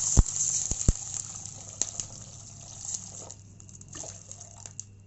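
Water poured into a hot steel kadai of oil-fried tempering spices and vegetables: a loud sizzling hiss that dies away over about three seconds, with a few sharp pops in the first two seconds, as the stream keeps running in. This is the water being added to the tempering for rava upma.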